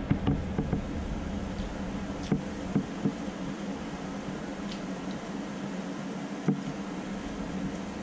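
A steady low hum from an appliance in a kitchen, with a few scattered soft clicks, most of them two to three seconds in and one more about six and a half seconds in.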